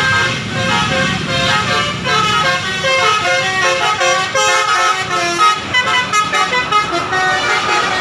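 Bus telolet horn of the Basuri type playing a quick melody of short, stepping notes.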